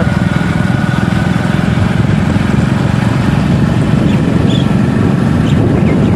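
Motorcycle engine running steadily while riding along a village road, heard close up from on the bike as an even, fast engine pulse.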